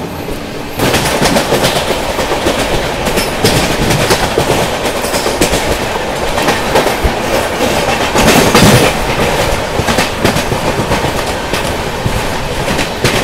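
Express train running at speed, heard from an open coach door: loud clickety-clack of wheels over rail joints with rushing air. The noise steps up about a second in and swells for a moment past the middle as a suburban electric train passes the other way on the next track.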